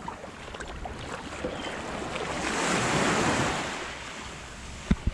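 Small waves washing up on a sandy beach, one wave swelling up and breaking back about halfway through. Two sharp knocks come near the end.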